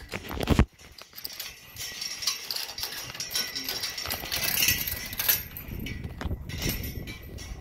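A mustang mare moving about inside a horse trailer: her hooves knock loudly on the trailer floor in the first half-second or so, then comes a run of rustling as she gets into the hay, with a few softer knocks near the end.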